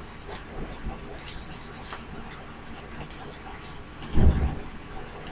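Computer mouse clicking, a handful of light, sharp clicks at irregular intervals, with a low dull thump about four seconds in.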